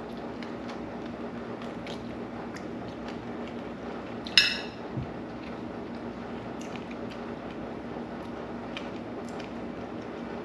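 Cutlery on a dinner plate: scattered light clicks and one sharp, ringing clink about four seconds in, followed by a soft knock, over a steady low room hum.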